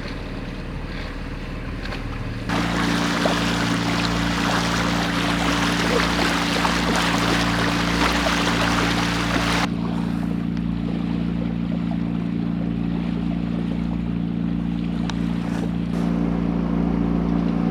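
Sailboat's engine running steadily at low revs under power, a constant hum. A few seconds in, a loud rushing hiss of water or wind joins it, then stops suddenly about ten seconds in.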